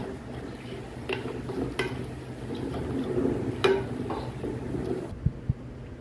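A wooden spoon stirring uncooked rice in water in a rice-cooker pot: a wet swishing with a few sharp knocks of the spoon against the pot, and two low thumps near the end.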